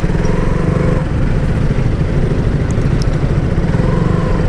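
KTM Duke 200's single-cylinder engine running at low speed while the bike climbs onto a rough dirt shoulder, its pitch rising and easing a little a couple of times.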